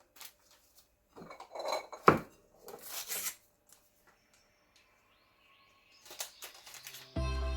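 Kitchen bowl and utensils knocking and clinking, with short rustling sounds as dry ingredients are added. The sharpest knock comes about two seconds in. Background music comes in near the end.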